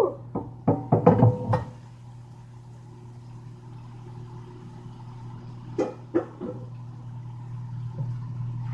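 A steady low electrical hum from a running kitchen appliance. Over it come a quick run of clicks and knocks in the first second and a half, and two or three more knocks about six seconds in.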